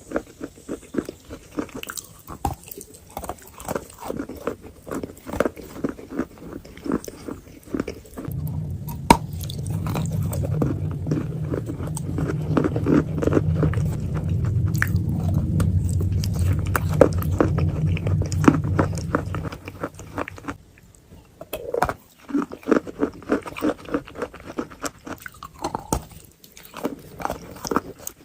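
Close-miked chewing and biting of wet chalk with clay paste: many short, crisp crunches and wet chews. From about 8 s to about 20 s a steady low hum runs under the chewing.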